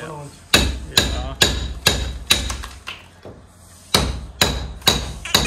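Hammer striking a chisel into a plastered brick wall: six sharp, ringing metallic blows at about two a second, a pause of about a second, then four more.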